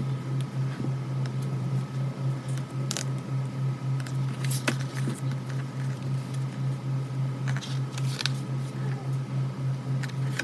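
Glossy pages of a photo book being turned and handled, with scattered paper rustles and light clicks over a steady, pulsing low hum.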